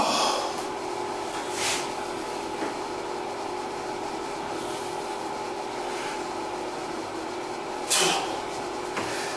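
Steady machine hum made of a few fixed pitches, with short bursts of noise about two seconds in and a louder one about eight seconds in.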